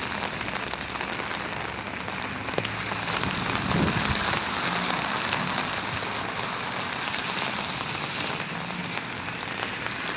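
Heavy rain falling and splashing on wet surfaces, a steady dense hiss that grows a little louder through the middle.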